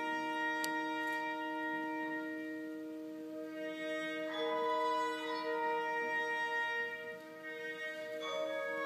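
Symphonic wind band playing slow, sustained chords, moving to new notes about four seconds in and again near the end.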